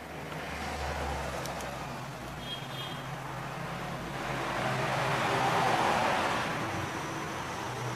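Road traffic passing: a rushing noise that swells, loudest about five to six seconds in.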